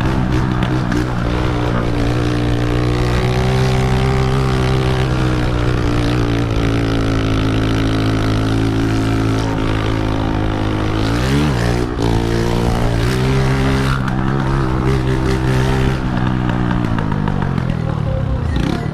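Honda CG125's single-cylinder four-stroke engine running loud through a straight-through exhaust with no muffler, under way at a fairly steady engine speed. About eleven seconds in the revs drop sharply and climb straight back up, and near the end they fall away steadily.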